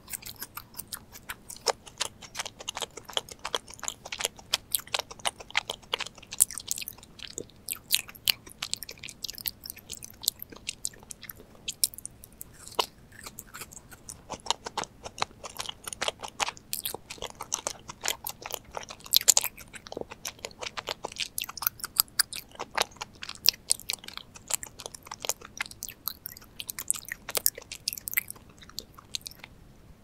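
Close-miked chewing of a macaron: a dense stream of quick, crisp crunches and moist mouth clicks as the shell and filling are bitten and chewed, sped up to double speed. The chewing stops just before the end.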